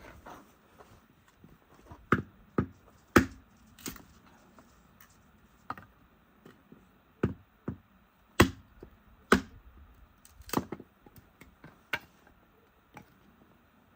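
A series of sharp, irregularly spaced knocks, around a dozen, the loudest about two to three seconds in and again about eight and a half to nine and a half seconds in.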